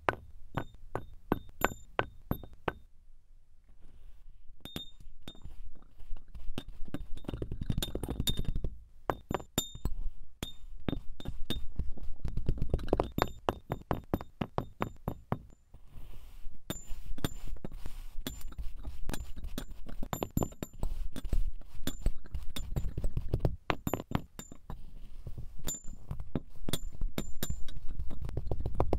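Cubes of kinetic sand dropping into a glass and being packed down: a long run of soft thuds and light clicks against the glass.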